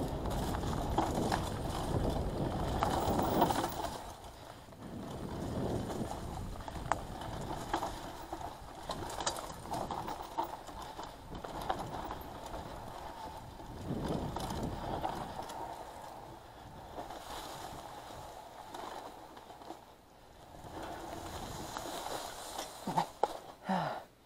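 Mountain bike riding down a dirt forest trail, picked up by an action camera's microphone: the rush of tyres over dirt and leaves, with knocks and rattles of the bike over bumps. The noise swells and fades with speed, loudest in the first few seconds and again near the end.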